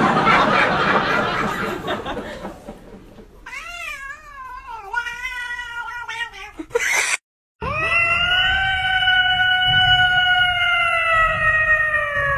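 Cats yowling: first a wavering, up-and-down yowl, then, after a brief break, one long meow held for about five seconds that drops in pitch at the end. It opens with a few seconds of noisy rush.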